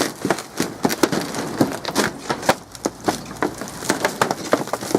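Footsteps crunching and crackling over a pile of dry debris and junk, a rapid irregular run of snaps and rustles.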